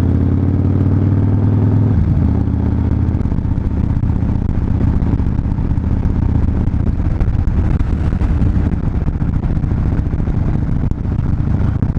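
Harley-Davidson Fat Bob's V-twin engine running steadily while riding, a low pitched engine sound whose note changes about two seconds in.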